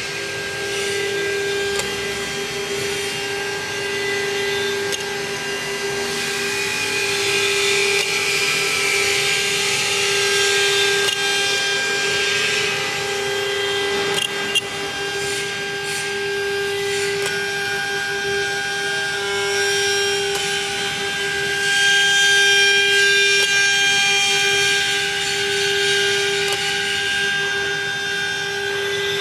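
CNC router spindle whining at a steady pitch as it drills rows of small holes in acrylic sheet, with a cutting hiss that swells and fades over it.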